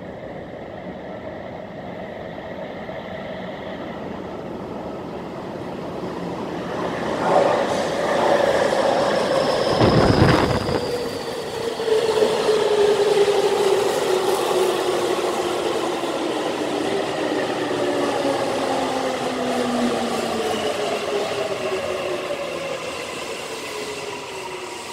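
Tokyu 5000-series train rolling into a subway platform and braking to a stop. It grows louder as it comes in, is loudest about ten seconds in, then its motors whine in several tones that fall steadily in pitch as it slows, and the sound dies away near the end.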